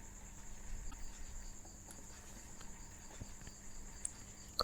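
Quiet room tone with a steady high-pitched chirring, and a few faint computer-mouse clicks, the sharpest near the end.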